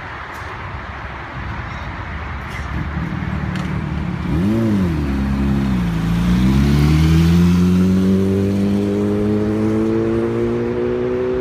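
Sport motorcycle engine blipped once quickly about four seconds in, then accelerating away with its pitch rising steadily.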